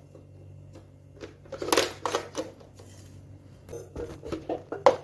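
Knocks and scrapes of kitchen items, including a utensil holder, being lifted and set down on a tiled countertop. They come in two clusters, one about a second and a half in and one from about four seconds in, with the sharpest knock near the end.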